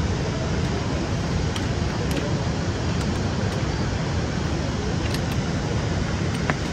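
Steady rushing outdoor noise, heaviest in the low end, with a few faint clicks scattered through it.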